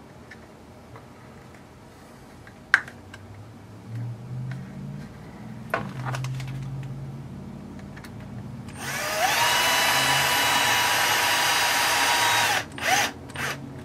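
Cordless drill/driver driving a screw into the plastic roll cage of an RC crawler kit. A few handling clicks come first. About nine seconds in, the motor spins up with a rising whine and runs steadily for about four seconds, then stops, with a short second pulse just after.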